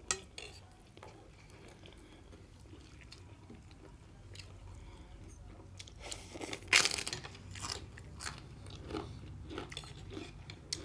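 Close-up biting and chewing of a crunchy fried beetroot poori, with one loud crunch about six and a half seconds in and smaller crunches after it.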